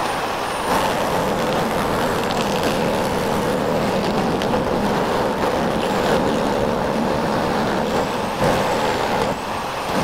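Jigsaw mounted under a table, running steadily as its blade cuts a curve in a thin strip of acrylic.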